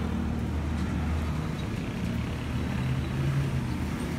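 Steady low rumble of a running motor vehicle engine, rising a little in pitch for about a second near the end.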